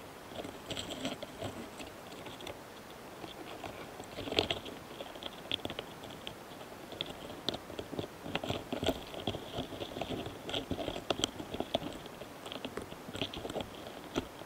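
Close-recorded crackling and scratching from a mating pair of Karakane hanakamikiri longhorn beetles (Gaurotes doris) on a flower cluster: irregular soft clicks and scrapes, with a louder crackle about four seconds in. These are the sounds of the pair's courtship and mating.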